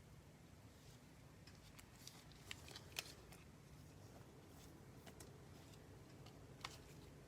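Faint handling of trading cards: soft rustles and small clicks of cards being slid into plastic penny sleeves and top loaders, with a sharper click about three seconds in and another near the end.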